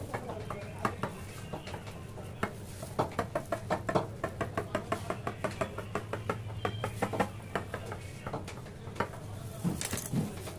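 Rapid light clicks and taps from a knife cutting through a sponge cake on a granite counter, in quick runs of about four or five a second, with a couple of louder knocks near the end as the cut cake is moved.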